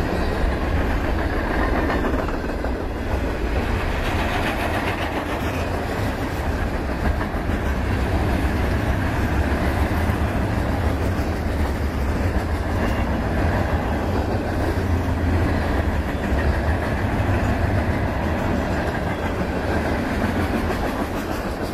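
Freight cars rolling past close by: a steady rumble of steel wheels on the rails with a rapid clickety-clack.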